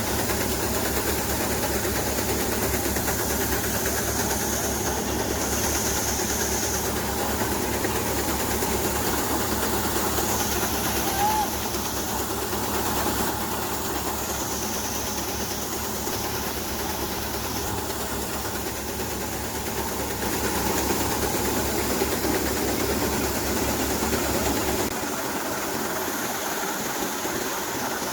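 Tractor-driven maize sheller running steadily, a continuous mechanical noise over a deep low throb. The throb drops away about 25 seconds in.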